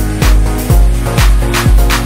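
Electronic dance music: a steady four-on-the-floor kick drum, about two beats a second, under sustained synth chords.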